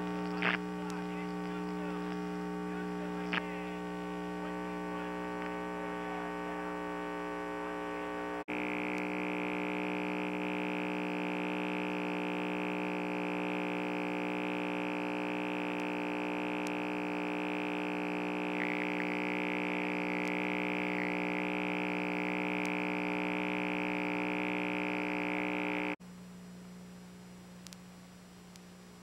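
Steady electrical hum and buzz made of many fixed tones, with no crowd or game sound. About eight seconds in it cuts to a louder buzz with a high whine added, and near the end it cuts to a fainter hum.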